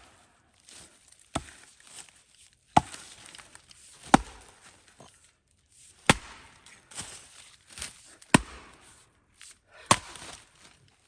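An axe chopping wood: about six sharp blows, one every second and a half to two seconds, with softer knocks between them.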